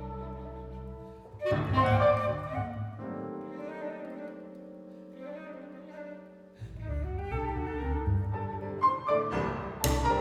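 Contemporary classical chamber music for flute, clarinet, electric guitar, piano and double bass. Held notes give way to a loud chord about a second and a half in, then sustained tones; low notes come back midway, and sharp struck chords sound near the end.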